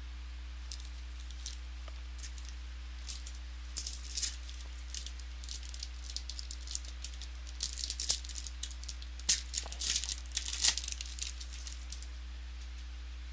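Trading-card pack wrapper crinkling and crackling as it is torn open and handled. The crackles come sparsely at first, thicken from about four seconds in and stop about a second before the end, over a steady low hum.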